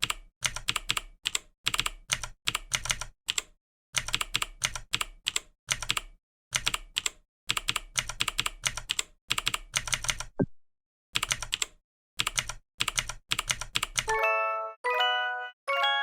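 Computer keyboard typing in bursts of rapid keystrokes, broken by short pauses. Near the end come three short chime tones, one after another.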